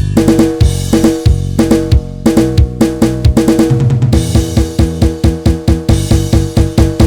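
Backing track of a Thai pop song with the guitar taken out: a drum kit keeps a steady beat of kick, snare and cymbals under sustained bass and other pitched notes.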